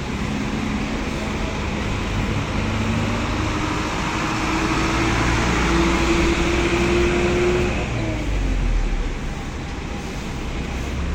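Road traffic: a motor vehicle's engine passing, its hum rising slowly in pitch and loudness, then falling away about eight seconds in with a brief low rumble.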